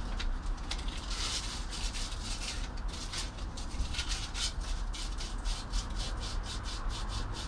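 Sandpaper rubbed back and forth by hand on a motorcycle handlebar end, about three scratchy strokes a second, taking off the old grip glue residue. A low steady hum runs underneath.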